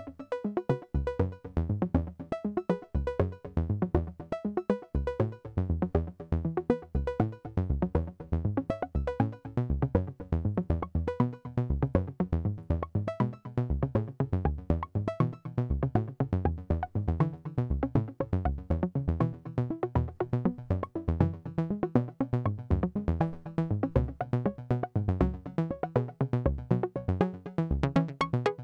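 Generative modular synthesizer patch in Cherry Audio Voltage Modular: several sequenced synth voices playing a fast, steady stream of short notes, pitched to a seven-tone scale by Septitone quantizers whose scale degrees are being switched on and off by gate signals.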